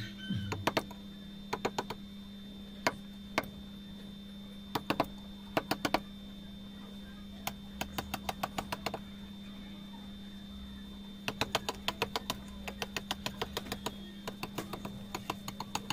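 Wooden mallet tapping a steel chisel into soft natural stone, carving a relief. The taps come in short runs of sharp, light knocks, several a second, with pauses between.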